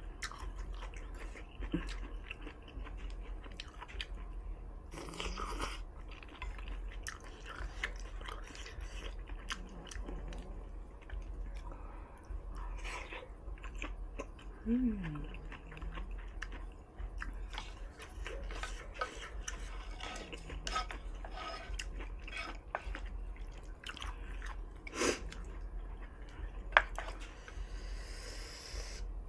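Close-up chewing and wet mouth sounds of someone eating a hot pot of noodles and tofu, with many short clicks and smacks throughout. A brief "mm" comes about halfway, and one sharp click near the end.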